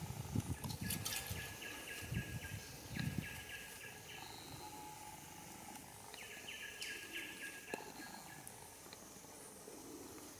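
Background birds calling in two bouts of rapid trilled notes, about a second in and again past the middle, with low rustling and thumps in the first few seconds.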